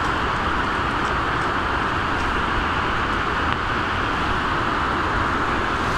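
The River Tees rushing over rocky rapids: a steady, even hiss of fast-flowing water.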